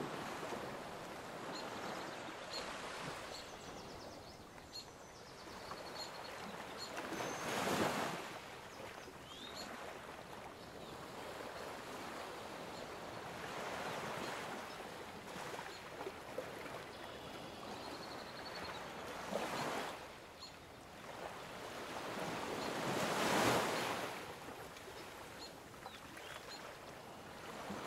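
Background recording of ocean waves washing in and drawing back: a steady hiss that swells and fades, with two larger waves about fifteen seconds apart.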